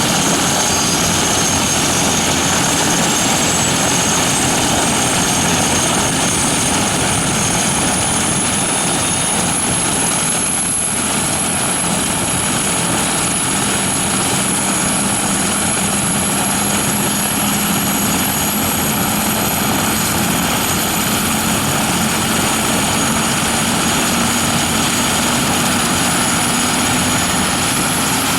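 Eurocopter EC-145 (BK117 C-2) helicopter's twin turboshaft engines and rotor running loudly and steadily. A high turbine whine rises in pitch over the first ten seconds or so, then keeps climbing slowly, as the engines spool up.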